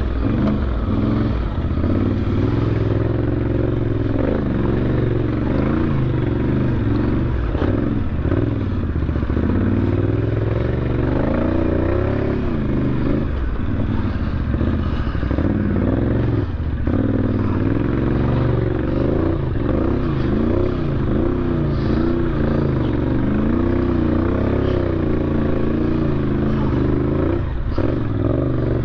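ATV engine running as the machine is ridden over a rough, rocky trail, its revs rising and falling again and again, with clatter from the machine over the rough ground.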